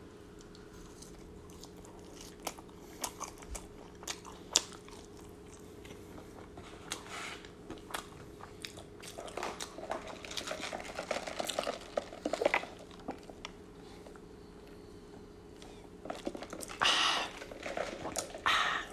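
Close-miked eating of McDonald's french fries: chewing with soft crunches and scattered sharp mouth clicks, busier in the middle. A louder rustling burst near the end.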